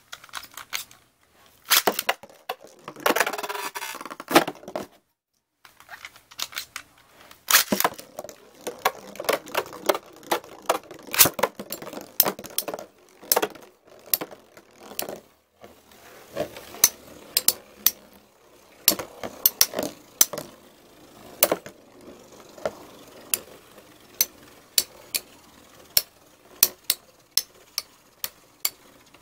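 Two spinning Beyblade tops, Storm Pegasus 105RF and Lightning L-Drago 100HF, in a plastic stadium: after a rasping stretch about three seconds in as they are launched, their metal wheels strike each other and the stadium wall in sharp clacks that come about twice a second near the end.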